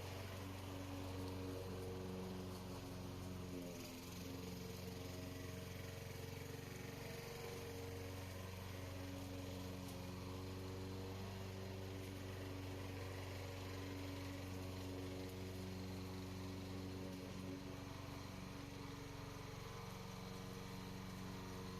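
Radio-controlled lawn mower's engine running steadily at an even pitch, the note wavering slightly a few times as it mows.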